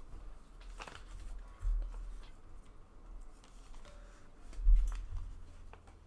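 Small plastic clicks and snips from model-kit parts being handled and cut from their runners with nippers, with a couple of dull thumps on the work surface, the loudest about three-quarters of the way through.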